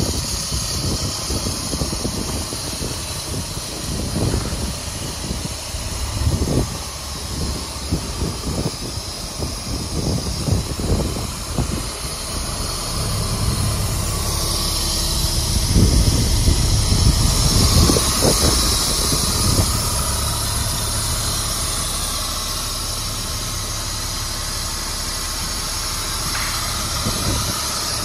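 A diesel truck engine idling steadily, under a high steady hiss that grows louder about halfway through. Irregular low buffeting noise comes and goes.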